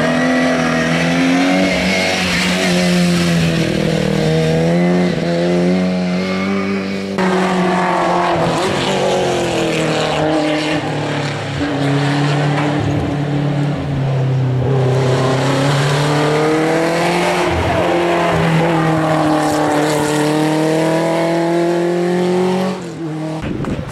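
Hillclimb race cars driven hard up a mountain road, one after another, engines revving high and the pitch climbing and dropping again and again with each gear change as they pass.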